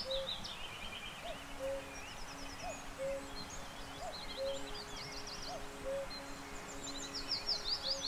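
Common cuckoo calling its two-note "cuck-oo", a higher note then a lower one, about six times at an even pace of roughly one call every second and a half. Small songbirds sing high, fast, falling trills over it.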